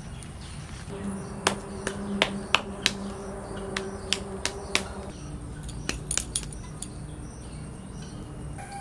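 Irregular sharp clicks of bangles knocking together as hands knead and shape a lump of wet clay, about a dozen in the middle of the stretch, over a faint steady hum.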